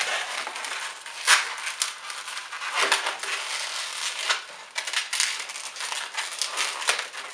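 Long red latex modelling balloon being pulled and twisted by hand, the rubber rubbing and squeaking against itself, with a few sharper squeaks along the way.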